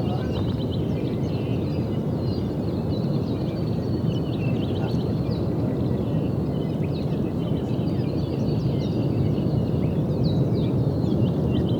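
Kilauea lava fountain erupting: a steady, deep rumble of gas and lava jetting from the vent, with many short high chirps over it.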